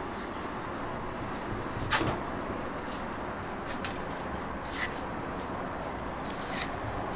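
Steady kitchen background noise, with a sharp knock about two seconds in and a few lighter clicks after it, from a stainless steel pan being handled.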